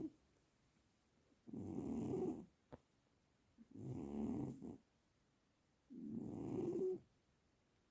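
A sleeping cat snoring: three slow snores, each about a second long, coming about every two seconds with quiet breaths between.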